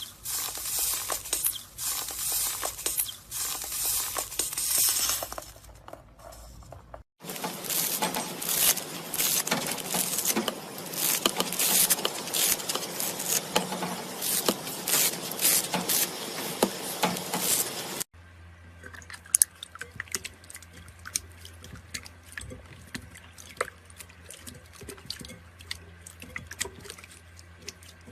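Slime being squeezed and poked by hand, making wet squishing and crackly popping sounds, in three separate clips with abrupt cuts about 7 and 18 seconds in. The last clip is quieter, with sparser pops.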